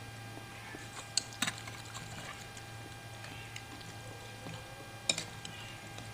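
Eating utensils clinking against a bowl while a large meatball is cut open: a few sharp clicks about a second in, again half a second later, and about five seconds in, over a steady low electrical hum.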